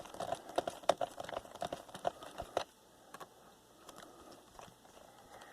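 Rapid, irregular small clicks and taps of a screwdriver working on a laptop's plastic case while its screws are tightened down. They stop about two and a half seconds in, leaving only faint handling sounds.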